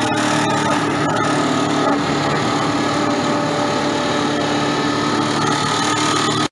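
Electric-motor-driven wood sawdust making machine running under load, its rotating blades cutting wood into sawdust with a loud, steady mechanical din. A few sharp knocks come in the first second or so.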